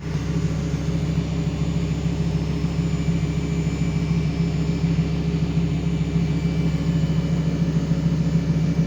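Lamborghini engine idling steadily after a radiator replacement: an even, low hum with no revving.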